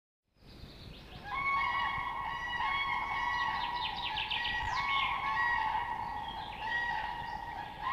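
A flock of wild geese honking, with many calls overlapping. It fades in, the calls start a little over a second in, and a quick run of sharper calls comes through the middle.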